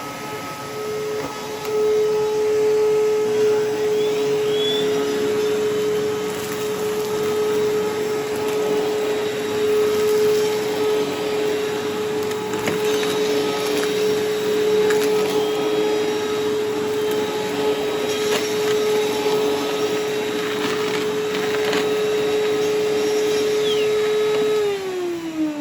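Miele upright vacuum cleaner running, a steady motor whine over rushing air with a few light knocks, then switched off near the end, the whine falling as the motor spins down. The owner judges the machine needs work and probably needs blowing out with an air compressor, after dirt got past a badly fitted bag.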